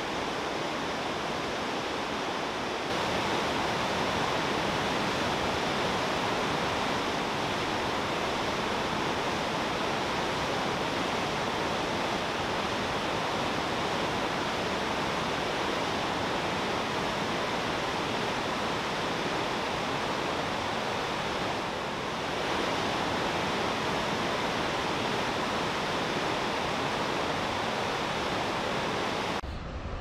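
Kinuseo Falls, a 70-metre waterfall on the Murray River, and its whitewater rapids rushing in a steady, loud wash of water noise. It steps up slightly a few seconds in and dips briefly a little after twenty seconds.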